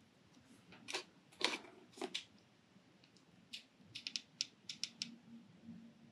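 Faint clicks and taps from a plastic hot glue gun being handled and its trigger squeezed to feed out glue. The clicks come singly at first, then in quick runs about two-thirds of the way through.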